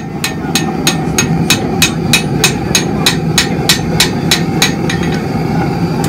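Rapid, evenly spaced hammer blows on hot steel, about five a second, each with a bright metallic ring, over a steady low hum. The pattern-welded billet is being forged to distort its pattern.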